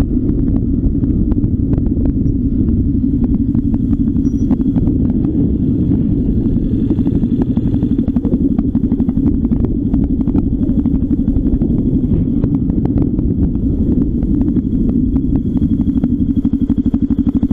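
Dirt bike engine running steadily while riding a gravel track, with frequent small clicks and clatter over it. Near the end the engine settles into an even, regular throb.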